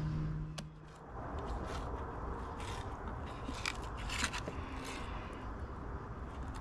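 Fillet knife cutting and scraping through a crappie on a plastic cutting board: a few short, separate scrapes. A steady low hum stops about a second in.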